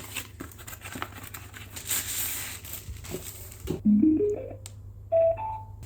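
Portable Bluetooth speaker handled with clicks and rustling, then sounding its electronic chimes: a quick run of notes stepping upward about four seconds in, and a two-note rising chime a second later.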